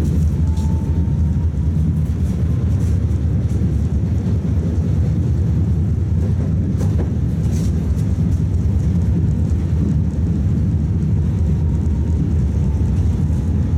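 Tatra T3 tram running, heard from inside the passenger cabin: a steady low rumble of wheels and running gear, with a couple of brief clicks about halfway through.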